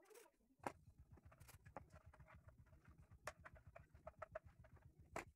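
Faint clicks and taps of 3D-printed plastic airframe parts being handled and fitted together, with a low rumble underneath from just under a second in.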